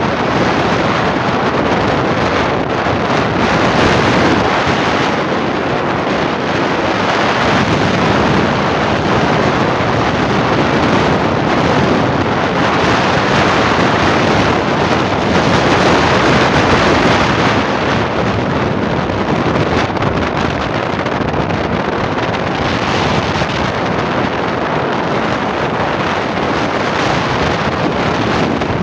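Loud, steady wind rush buffeting the microphone on a moving motorcycle at road speed, masking the engine and tyre noise beneath it.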